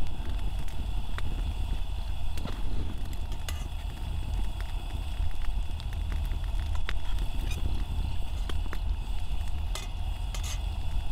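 Wood fire crackling in a small folding fire stand, with scattered sharp pops, over a steady low rumble.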